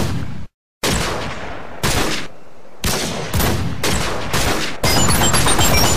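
Bursts of rapid gunfire, heard as a series of sharply cut stretches about a second long that run together into one continuous volley from about five seconds in, when short high beeping notes join in.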